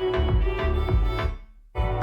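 Instrumental music with a steady beat and strings, played through a portable Bluetooth speaker. About a second and a half in, the music drops out for about half a second, then comes back abruptly.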